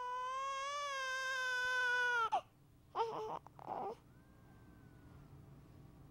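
A baby crying: one long, steady wail that breaks off about two seconds in, then a couple of short sobbing cries, then the start of another long wail at the very end.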